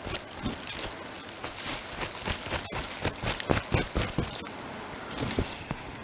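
Hands pulling packed dust and lint out of a commercial wet/dry vacuum cleaner's bin, plastic liner and mesh filter, making an irregular run of rustles and soft knocks.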